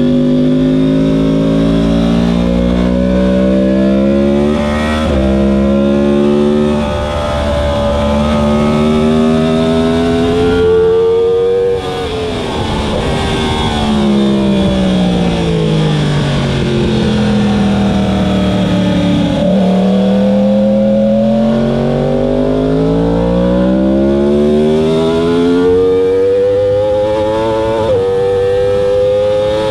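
2015 Yamaha R1's crossplane inline-four engine heard on board at racing speed, pulling hard with its pitch climbing. The engine note drops away sharply about a third of the way in, sinks for several seconds, then rises steadily again under throttle.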